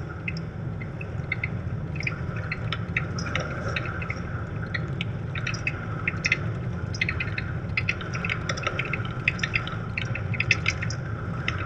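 Road noise inside a moving car on a wet lane: a steady low engine and tyre rumble, with frequent irregular light clicks and ticks over it.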